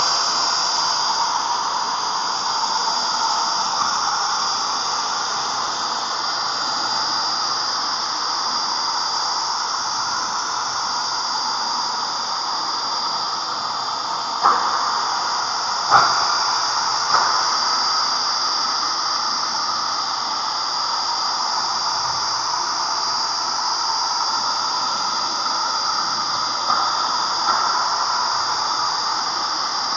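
RexBeti 700-watt HVLP electric paint sprayer running steadily while spraying paint: a high motor whine over a rush of air. A few brief clicks come about halfway through and again near the end.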